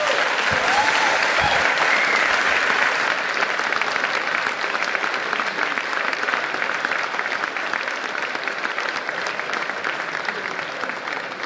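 A large audience applauding at the end of a talk, a dense patter of many hands clapping that is loudest at first and slowly dies down.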